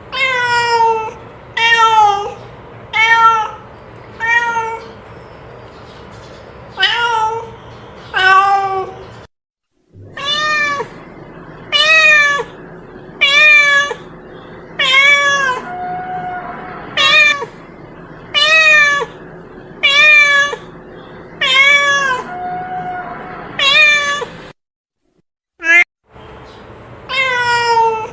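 Domestic cat meowing loudly over and over, one short call about every second or so, each one sliding down in pitch at the end. The calls break off twice for a moment.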